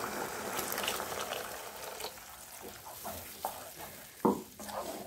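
Curry masala sizzling and bubbling in a non-stick kadai just after water is poured in, fading over the first couple of seconds. Then a spoon stirs through the gravy with a few light knocks against the pan, the sharpest about four seconds in.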